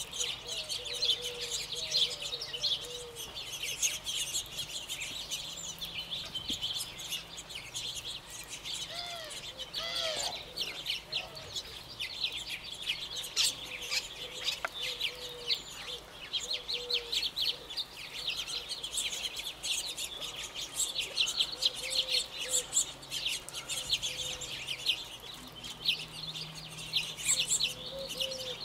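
A covey of quail feeding: a dense, continuous chatter of short high chirps, with short low clucking notes repeated throughout.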